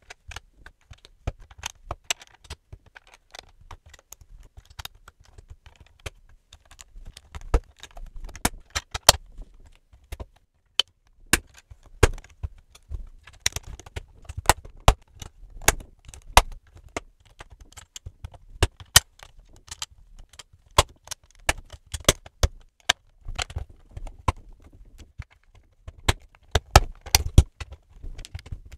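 LEGO bricks clicking and snapping as they are pressed onto a LEGO build, in quick irregular sharp clicks, some with a soft thud underneath.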